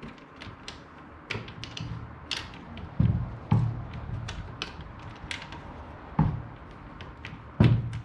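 Irregular metal clicks and knocks from a car seat's upper frame being fitted to its base and a mounting bolt being started in its hole, with heavier thumps about three seconds in, again half a second later, at about six seconds and near the end.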